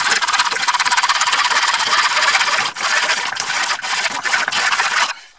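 Hand saw cutting through grey PVC drain pipe held in a wooden miter box, with rapid back-and-forth strokes that stop about five seconds in as the cut finishes.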